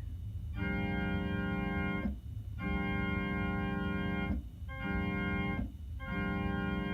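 Electronic keyboard on an organ-like voice playing a steady chord in imitation of a New Cast Nathan P5A five-chime train horn. It is sounded long, long, short, then long again near the end: the grade-crossing pattern.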